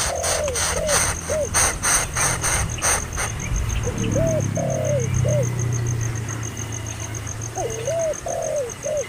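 A bird calling in groups of three or four short, arched notes that rise and fall, three times over. For the first three seconds a sharp clicking or rattling runs at about three clicks a second.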